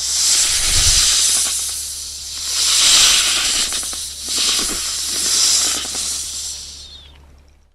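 Snake hissing in threat: a long, breathy hiss that swells and eases about three times, then fades away near the end.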